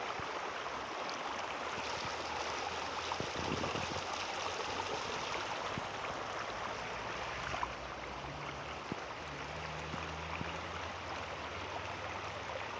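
Fast-flowing floodwater rushing across a road, a steady stream-like rush with some gurgling.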